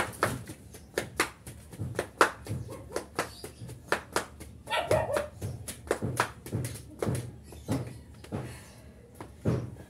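Rubber flip-flops slapping on concrete in quick, repeated steps, about two to three a second. A dog barks briefly about five seconds in.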